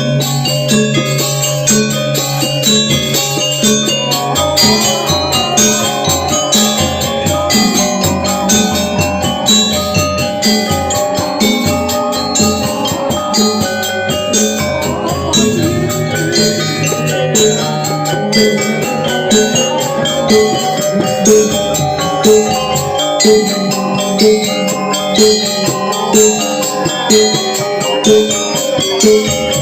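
Balinese gamelan music: bronze metallophones struck in quick, ringing patterns over a steady repeating beat.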